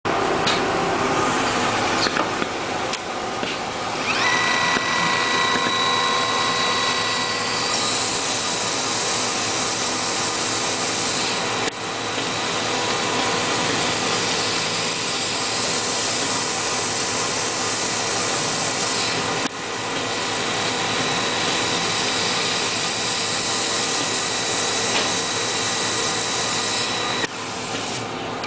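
Centerless grinder running, its abrasive wheel grinding metal with a steady high hiss. A steady high whine joins about four seconds in. The hiss dips briefly twice, about twelve and twenty seconds in, and falls away near the end.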